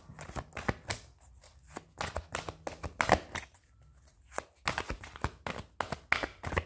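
A deck of angel oracle cards being shuffled by hand: quick runs of card clicks and slaps in three bursts, with a short pause in the middle.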